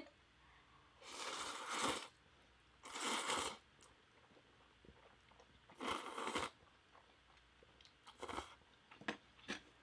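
A person slurping instant spicy seafood noodles (jjamppong) off chopsticks: three slurps of about a second each, followed by a few short chewing sounds near the end.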